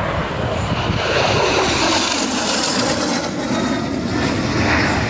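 Aero L-39 Albatros jet trainer passing overhead in a display flight: a steady rushing jet engine noise that swells about a second in.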